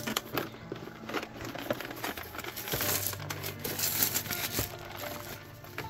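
Clear plastic shrink-wrap crinkling and crackling in irregular bursts as it is peeled off a cardboard box.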